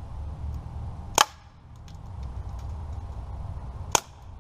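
Two shots from a Daisy Powerline 426 BB gun fired at empty spray cans, each a single sharp crack, about three seconds apart.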